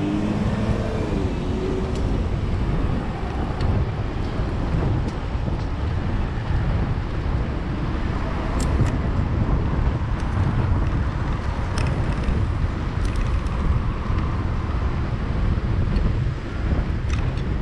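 Wind rumbling over the microphone of a camera riding on a moving bicycle, a steady low rumble with faint clicks now and then.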